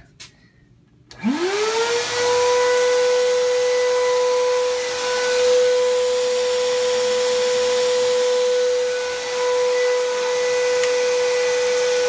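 A high-voltage hairpin Tesla circuit switching on about a second in. Its whine glides quickly up in pitch and settles into a loud, steady buzzing tone over a constant hiss.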